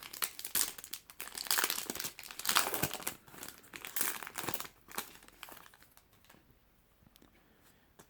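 Yu-Gi-Oh! booster pack wrapper crinkling and tearing as it is opened by hand, in quick irregular crackles that die away about five and a half seconds in.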